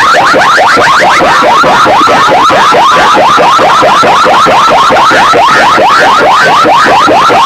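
An electronic siren-like effect of fast, repeated rising chirps, several a second, blasted at full volume through DJ competition speaker stacks, heavily distorted.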